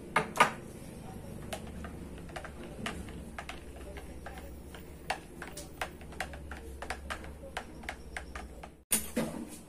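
Plastic utensil stirring liquid dish soap in a plastic pitcher, clicking and ticking against the pitcher's sides at an uneven pace, as dissolved salt water is stirred in to thicken the soap. Two louder knocks come right at the start, and a louder knock near the end.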